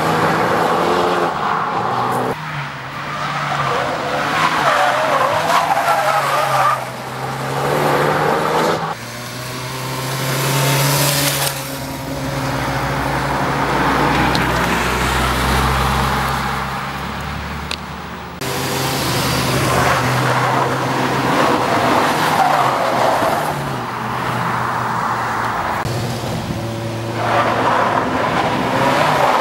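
Ford Focus ST drifting: its tyres squeal in wavering screeches over the engine held at high revs, the sound breaking off and changing abruptly a few times.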